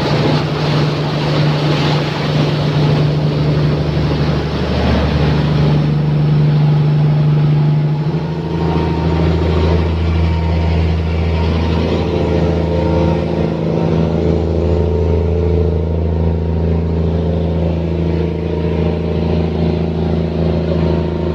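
Fishing boat's engine running steadily. A rushing noise rides over it for the first eight seconds or so, then fades as the engine note shifts deeper.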